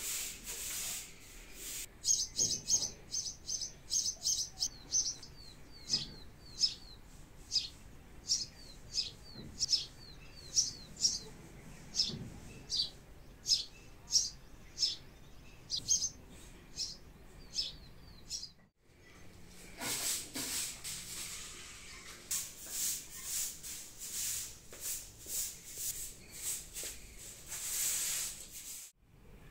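A small bird chirping, a quick run of short high chirps repeated over and over. After a break come repeated swishing strokes of a short straw broom sweeping a concrete floor, about one or two strokes a second.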